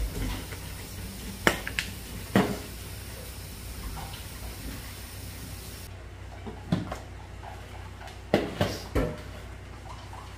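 Occasional sharp taps and knocks from a seasoning shaker and plastic food tubs handled on a countertop while flour is mixed by hand, over a steady low hum. Three knocks come in quick succession near the end.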